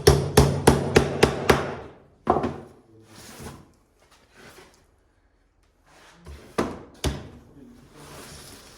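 A hammer striking wood: a quick run of about five sharp blows in the first second and a half, one more blow shortly after, then two blows close together later on, with softer scraping in between.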